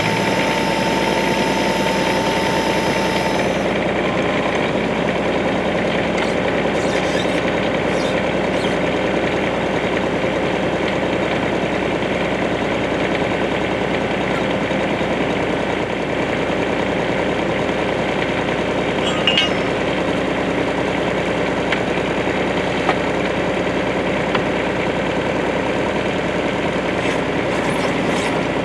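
Bobcat 320 mini excavator's diesel engine running steadily. A high steady whine sounds over it for the first few seconds and then stops, and a few light clicks and knocks come at scattered moments.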